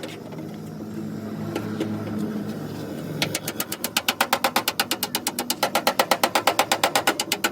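Hammer tapping fast and evenly on the sheet-metal fender of a Suzuki Mehran, about seven blows a second, starting about three seconds in. Before that, a low steady hum.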